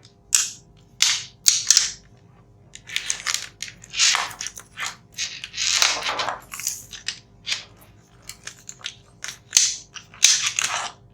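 Hands handling an air-conditioner control board and its wiring: an irregular run of sharp clicks, snaps and rustles, some crackly and drawn out.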